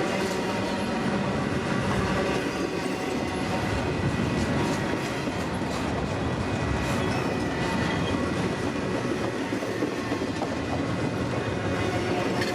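Train cars rolling past on the track, a steady rumble of wheels on rail with some clickety-clack of the wheels over the rail joints.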